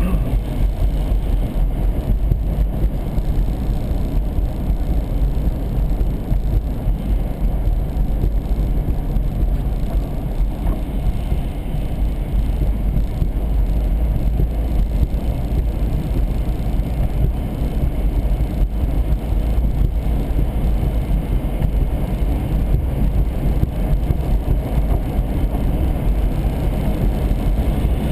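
Steady road noise of a car driving at highway speed, heard inside the cabin: a continuous low rumble of tyres and engine with no distinct events.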